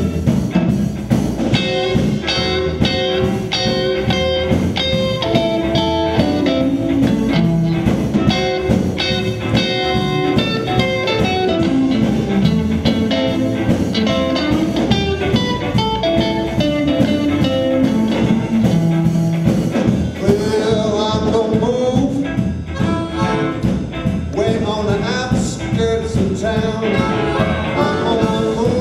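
Live blues band playing an instrumental passage: electric guitar lead lines over drums. About two-thirds of the way through, a blues harmonica played into a cupped hand-held microphone takes over with bending, wavering notes.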